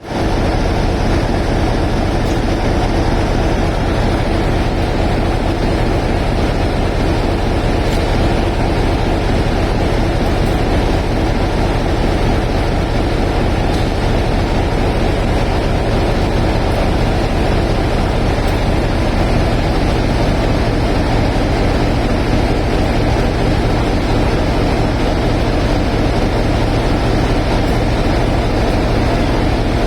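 Class 33 diesel locomotive's Sulzer eight-cylinder engine running steadily, a loud, deep, even engine sound with no change in engine speed.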